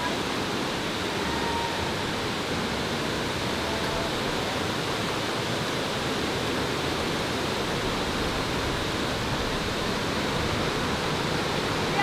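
Steady rush of water from a waterfall, an even, unbroken noise.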